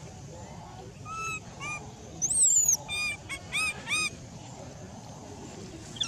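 Infant long-tailed macaque crying: a string of short, high, arched cries, with one longer, louder squeal about two seconds in that falls in pitch. Crying and begging, which the uploader puts down to hunger.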